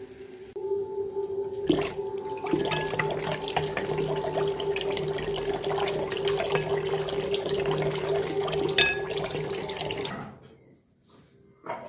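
Kitchen tap running into a glass bowl of rice in a steel sink while the rice is stirred with a wooden spoon, with a steady hum underneath. The water stops about ten seconds in, and a single knock follows near the end.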